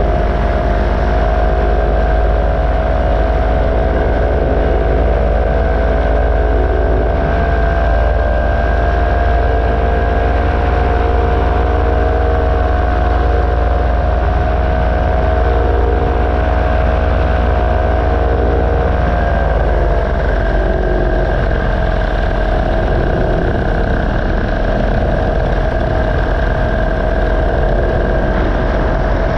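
Paramotor engine and propeller running steadily in flight. The engine note drops slightly about twenty seconds in and then holds at the lower pitch.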